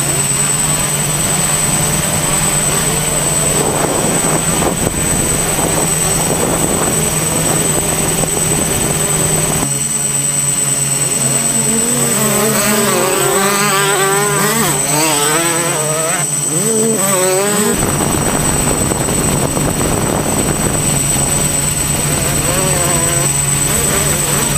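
A camera drone's propellers and motors hum steadily, with a constant high whine. For several seconds in the middle, the low hum cuts out suddenly and wavering, rising and falling tones come through before the hum returns.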